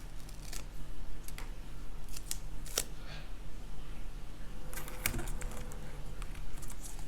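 Scattered light clicks and scrapes of small plastic slime containers and sticker sheets being handled, over a steady low electrical hum.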